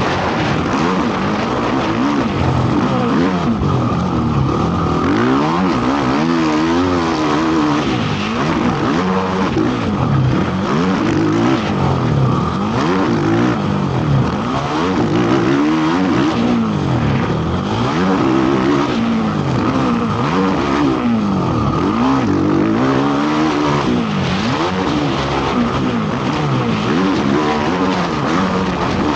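Racing ATV (quad) engine being ridden hard around a motocross track, its pitch climbing and dropping over and over as the throttle is opened and shut through the jumps and turns.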